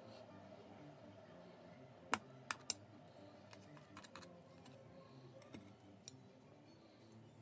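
Metal knife and fork clinking and scraping against a stainless steel bowl while cutting up sausage. Three sharp clinks come close together about two seconds in, followed by lighter taps and scrapes.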